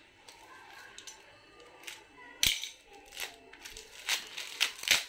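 Clear plastic wrapping being cut with a box cutter and pulled off a cricket bat: soft crinkling and rustling, then several sharp crackles of the plastic in the second half.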